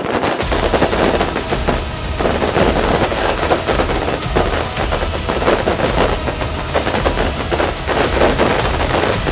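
Fireworks going off in a dense, rapid barrage of bangs and crackles with hardly a gap between them, over a steady low rumble.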